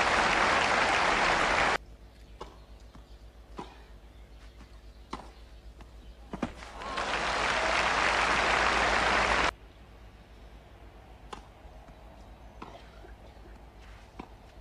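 Crowd applauding on and off, with two abrupt cut-offs, about two seconds in and past the middle. Between and after the applause come single sharp tennis ball hits, each a second or more apart.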